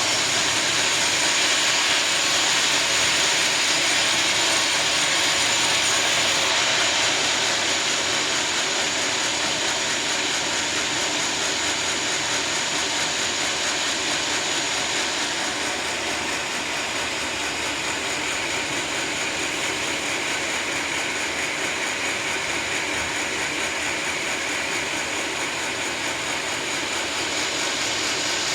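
Sawmill saw cutting lengthwise through a teak log: a steady dense cutting noise with a thin high whine running over it.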